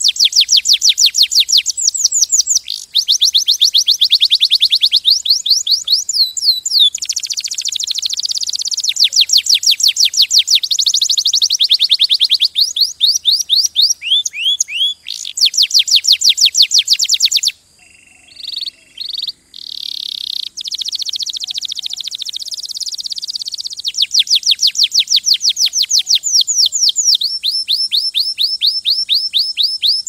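Domestic canary singing: long runs of rapid repeated notes, each run a trill on a different note, changing every second or two. A little past halfway the song drops to a few quieter, scattered notes for a few seconds, then the trills resume.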